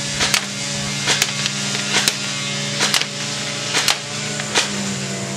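Crosman Pulse R71 electric airsoft rifle firing single shots on semi-automatic, about six sharp clicks roughly one a second, some closely doubled. A steady low hum runs underneath.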